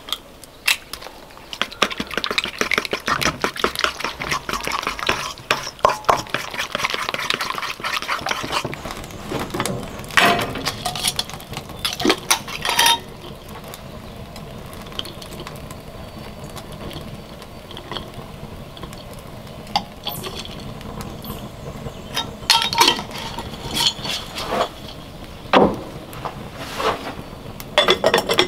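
A utensil stirring batter in a stainless steel mixing bowl, a fast, dense scraping clatter for about the first eight seconds. After that come scattered clinks and knocks of cookware and jars handled at the cooking station, over a low steady background.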